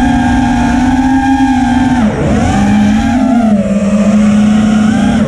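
5-inch FPV racing quadcopter's brushless motors and propellers (iFlight Xing 2207 1800KV on an ImpulseRC Apex) whining in flight, heard from the onboard camera. The pitch holds steady, dips sharply about two seconds in, then climbs back and keeps rising and falling with the throttle.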